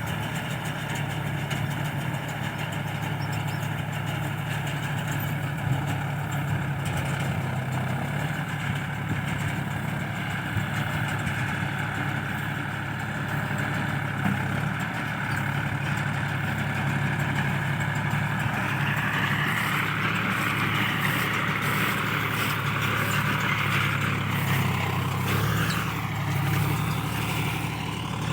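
Tractor engine running steadily while working a round straw baler. A higher whine comes in over the last third and wavers up and down.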